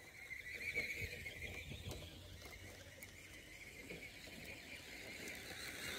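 High-pitched whine of an RC rock crawler's electric motor and gearbox as it drives over rough ground, with a few soft knocks from the tyres on stones in the first couple of seconds.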